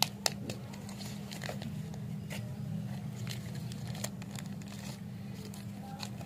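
Plastic lollipop wrapper crinkling and tearing open under the fingers: a few sharp crackles at the start, then scattered light crackles. A steady low hum runs underneath.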